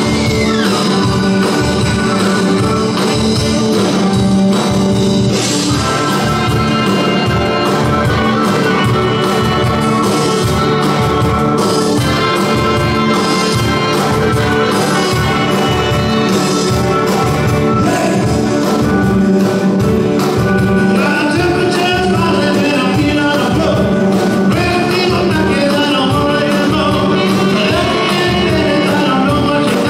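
A live band playing a song with a steady drum beat and a singer's voice.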